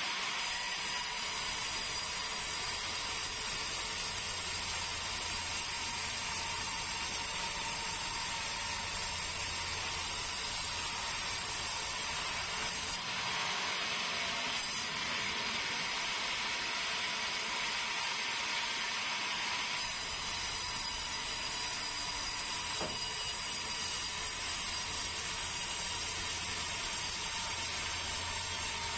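Sawmill saw running steadily, a continuous mechanical noise with a constant thin whine, its sound shifting for several seconds in the middle.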